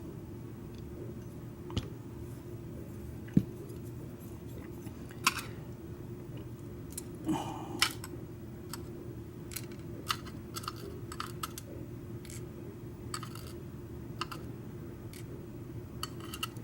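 Scattered small metal clicks and taps as a Schlage deadbolt cylinder is taken apart, its springs dumped out and small parts handled, with a few sharper knocks in the first half over a steady low hum.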